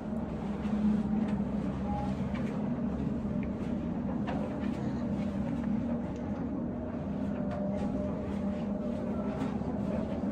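Hotel delivery robot driving along a corridor: a steady low hum from its drive motors and wheels, with faint light clicks.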